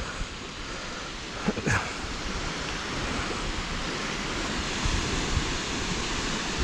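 Sea waves washing on a mixed beach, with wind buffeting the microphone; a brief knock about a second and a half in.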